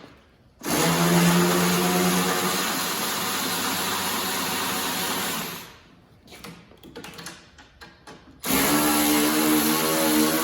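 Cordless power tool spinning the track tension adjuster nuts loose on a snow bike's rear suspension. It runs steadily for about five seconds, stops, then starts again about two-thirds of the way through, with a few light clicks in the pause.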